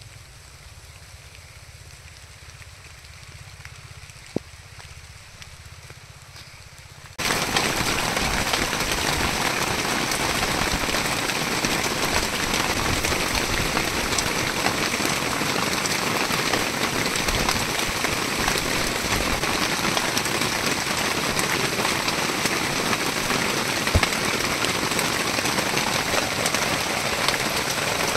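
Heavy rain pouring down, a dense steady hiss that starts abruptly about seven seconds in. Before it there is only a faint low hum and a single click.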